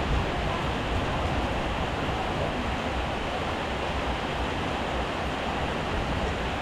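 Heavy rain falling steadily: an even, unbroken hiss of rain.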